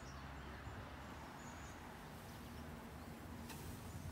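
Honeybees from a freshly installed package buzzing in a steady low hum, with a single sharp click about three and a half seconds in.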